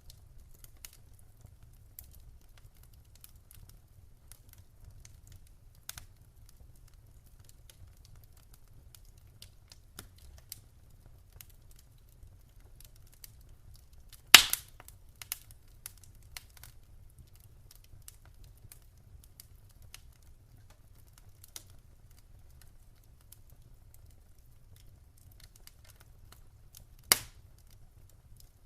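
Wood fire crackling: sparse sharp clicks, with two loud pops about halfway through and near the end, over a low steady rumble.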